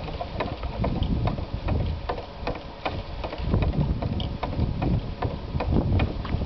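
Tjasker drainage mill turning in the wind, its mechanism clicking and knocking about three times a second. Wind buffets the microphone with a low rumble.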